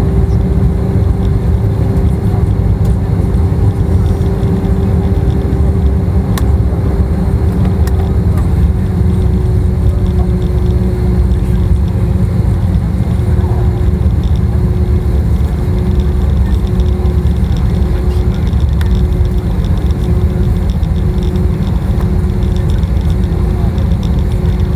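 Cabin noise of an Airbus A320neo taxiing after landing: a steady low rumble from its Pratt & Whitney PW1100G geared turbofans and the rolling airframe. Over it runs a steady hum that begins to pulse on and off after about ten seconds.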